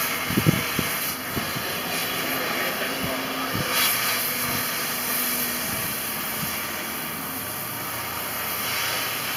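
Cutting torch hissing steadily as it cuts through the metal body of an old streetcar, with a few low knocks in the first second.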